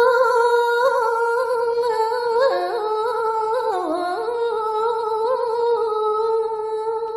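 Solo female voice singing Balinese geguritan verse, unaccompanied, holding one long melismatic note with small wavering turns and a dip lower about halfway through before settling back.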